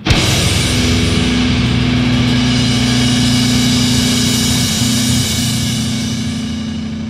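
Metal band's heavily distorted guitars strike one last chord hard at the start and let it ring, a sustained droning wash that slowly fades as the song ends.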